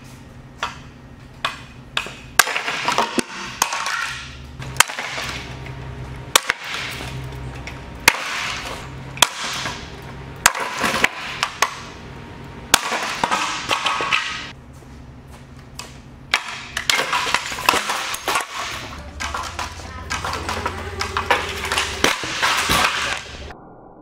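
Mainstays hugger ceiling fan running as it shakes itself apart: repeated sharp knocks and long bursts of clattering and rattling over a low hum.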